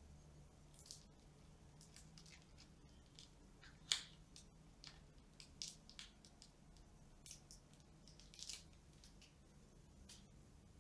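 Faint crinkling and crackling of thin protective plastic film being peeled off a new digital kitchen scale, in short separate bursts, the loudest about four seconds in.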